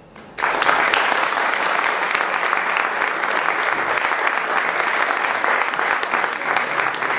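Applause from a room of people, breaking out suddenly about half a second in and continuing steadily.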